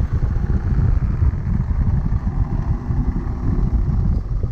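Engine of a car running as it drives over a rough grass field, a steady low rumble with uneven jolts.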